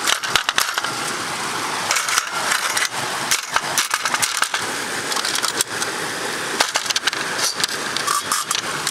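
A metal sluice box being put back together by hand: the riffle tray is squeezed down onto the expanded metal and locked in place, giving a run of irregular metal clicks, knocks and scrapes.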